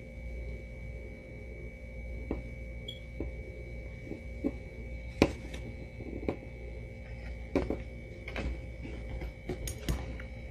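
Soft handling noises as fingers and a metal needle work a yarn tail through a crocheted bow. Several short, faint clicks and taps are scattered over a steady low hum.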